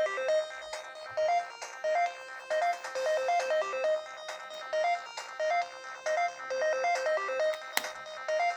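Samsung phone ringtone playing: a short melody of quick, high notes repeating over and over, with a single sharp click near the end.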